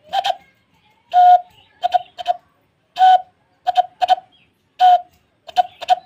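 Hand-cupped whistle: a man blowing into his clasped hands to mimic the call of the 'maut chiraiya' (death bird), a bird whose call villagers believe foretells a death. Hollow hooting notes come in a pattern of one longer note followed by two quick short ones, three times over.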